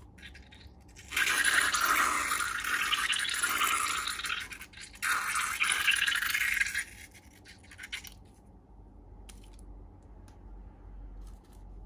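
Slime-making sounds: two long hissing, swishing stretches of wet material being worked or poured, the second ending about seven seconds in, followed by faint scattered clicks and crackles.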